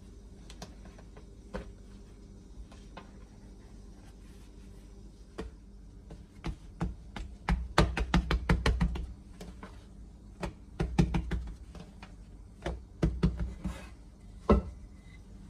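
Hands patting and pressing a ball of bread dough flat on a countertop: several runs of quick soft taps and dabs, densest in the middle. A single sharper knock near the end as a wooden rolling pin is set on the counter.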